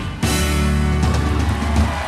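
Live reggae band playing an instrumental passage with no vocals. It breaks off briefly about a quarter second in, then comes back in on strong held bass notes.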